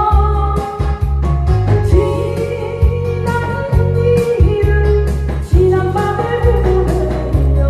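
A woman singing live through a headset microphone over a loud amplified backing track with a heavy bass line and a regular drum beat.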